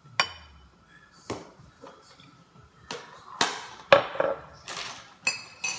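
A drinking glass and a ceramic bowl clinking and knocking against each other and on the countertop: several sharp knocks, the loudest about four seconds in, and two short ringing clinks near the end.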